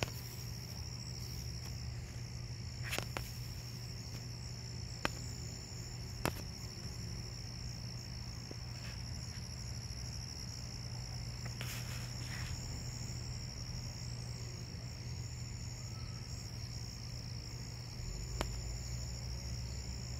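A steady high-pitched insect trill over a low steady hum, with a few faint clicks.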